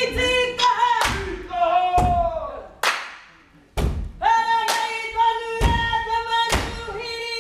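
Māori haka: a group of voices chanting in long held calls, cut by loud thuds about once a second from the performers slapping their bodies and stamping. There is a brief near-silent pause about three seconds in.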